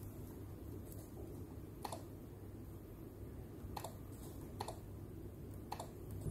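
Keys of an ASUS TUF Gaming F15 laptop keyboard being pressed one at a time in a key test: a few soft, separate clicks spaced about a second apart.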